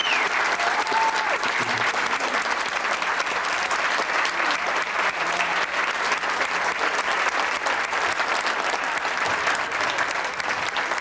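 Audience applauding steadily, a dense patter of many hands clapping, with a brief high call from the crowd near the start.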